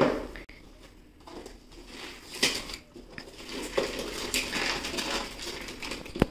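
Glossy gift-wrapping paper being torn open and crumpled by hand: crackling rips, quieter at first, then a sharp tear about two and a half seconds in and denser crinkling after.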